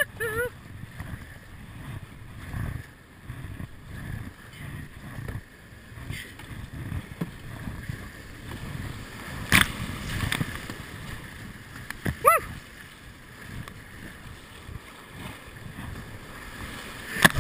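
Whitewater rapids rushing and splashing around a plastic whitewater kayak as it is paddled through the rapid. A sharp splash hits about ten seconds in, and a short rising shout cuts through about two seconds later.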